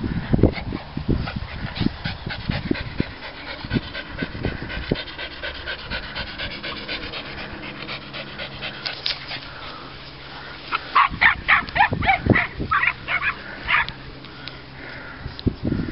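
Dogs barking: a quick run of about half a dozen sharp barks from about eleven seconds in, with scattered low thumps in the first few seconds.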